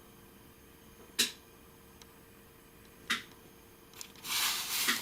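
Two sharp clicks about two seconds apart, then a short rustling hiss near the end.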